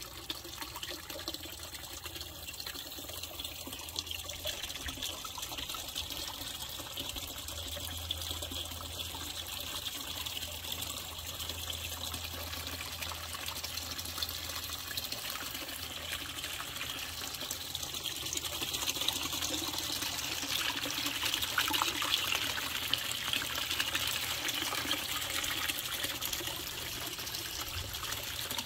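Water spilling steadily from a garden pond's waterfall filter into the pond: a continuous splashing trickle that grows somewhat louder about two-thirds of the way through.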